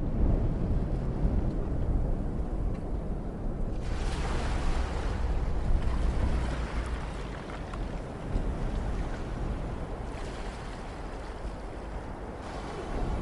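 Ocean surf breaking and washing ashore, with a heavy low wind rumble on the microphone. The hiss of the surf swells up about four seconds in and again later, rising and falling with the waves.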